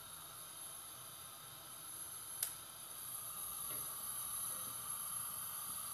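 Faint steady hiss from a whole chicken cooking in oil in a pot over a lit gas burner, with one sharp click about two and a half seconds in; the hiss grows a little louder after it.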